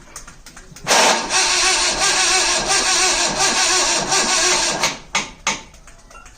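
Jeep's starter motor cranking the freshly repaired engine for about four seconds without it catching, a hard cold start, followed by two short knocks as the cranking stops.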